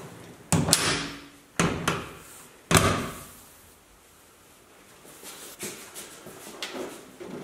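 Front fender of a Porsche 911 being pushed and knocked into place on the body: three sharp sheet-metal thumps about a second apart, each ringing briefly, then lighter handling clicks and rustles.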